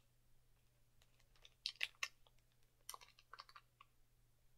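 Faint, irregular crackles and clicks of a small Skittles pack being handled and its candy eaten, in two clusters, about a second in and again near three seconds.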